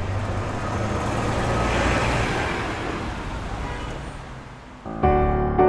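City street traffic noise: a steady hum and rumble of passing vehicles that swells and then fades away. About five seconds in, piano music starts.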